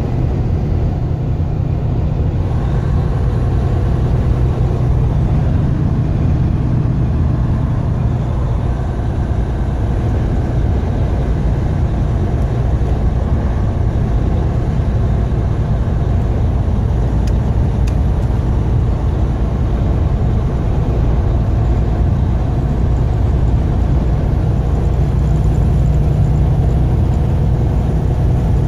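Steady drone of a truck's engine with road noise while driving at a constant speed.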